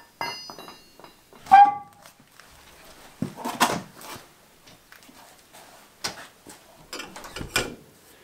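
Scattered metal clinks, knocks and scrapes of a road wheel being worked off the front hub of a Land Rover Series 1, with one loud, short, sharp sound about one and a half seconds in.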